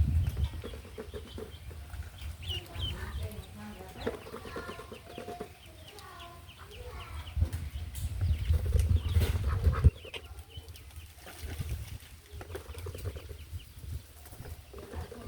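Chickens clucking, a run of short repeated calls, with loud low rumbles at the start and again from about 7 to 10 seconds in.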